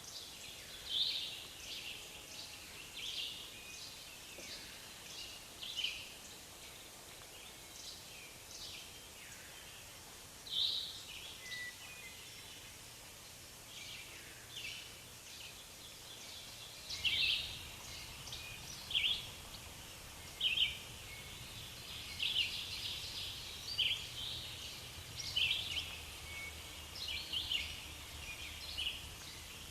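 Forest ambience: small birds chirping over and over in short calls, over a faint steady hiss. A low rumble gets louder about halfway through.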